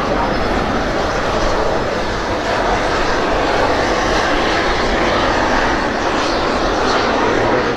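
Volvo RM12 turbofan of a Saab JAS-39 Gripen fighter running steadily as the jet rolls along the runway, an even jet rush with no breaks.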